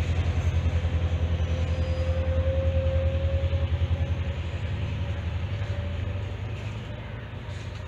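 Diesel engine of an S12 diesel multiple unit running with a steady, fast-pulsing low drone and a faint whine over it, the whole sound easing off in the second half.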